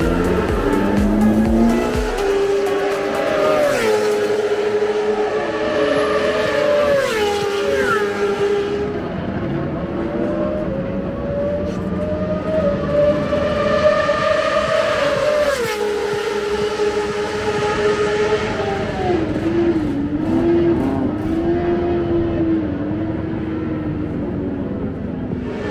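Racing motorcycle engines running, their pitch holding steady for a few seconds at a time and then stepping up or down, with background music mixed in.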